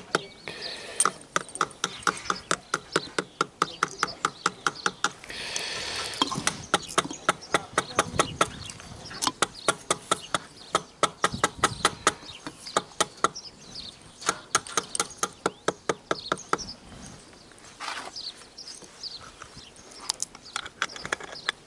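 Quick, even metal-on-metal taps, about four or five a second, with a slight ring to each blow, like a hammer working on a metal part; the tapping pauses briefly twice near the end.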